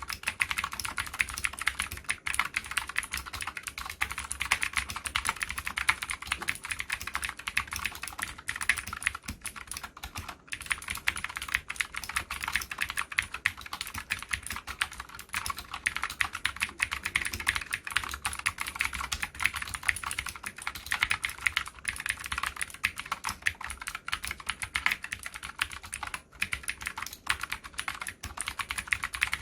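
Continuous fast typing on a Cox CK87 tenkeyless mechanical keyboard with Gateron Green clicky switches: a dense, unbroken run of sharp key clicks and keystrokes.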